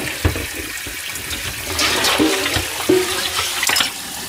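Kitchen tap running into a stainless steel sink while dishes are hand-rinsed, with a few clinks of crockery. About two seconds in the splashing grows louder for a couple of seconds as a steel pot is rinsed under the stream.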